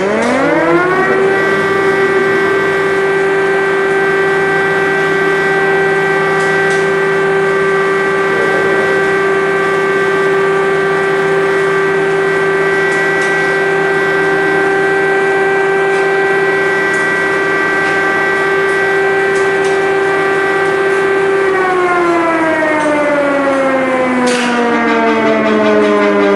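Civil defense air-raid siren sounding an alert. It rises to a steady pitch within the first second, holds it for about twenty seconds, then falls in pitch near the end.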